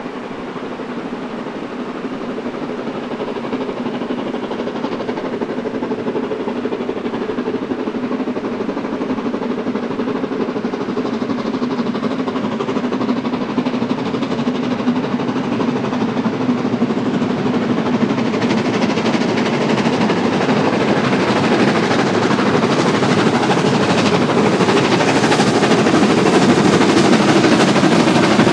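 Steam locomotive approaching under power, growing steadily louder.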